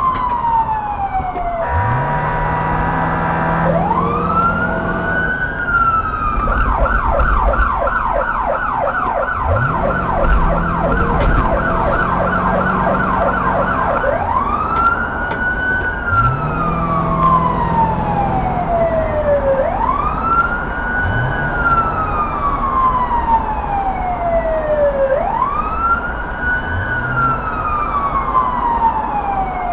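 Police car siren in wail mode: each cycle rises quickly and falls slowly over about five seconds. Early on it switches, after a brief steady tone, to a fast yelp of about two sweeps a second for some seven seconds, then returns to the wail, over the low running noise of the moving car.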